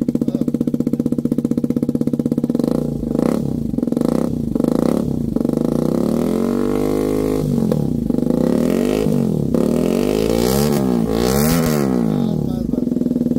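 Hero Karizma XMR 210's single-cylinder engine running through aftermarket dual slip-on exhaust cans: a steady idle, then revved up and let fall back once. Several quick throttle blips follow near the end.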